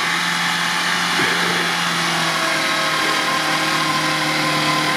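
Off-road 4x4's engine running at steady revs under load as it climbs a snowy slope.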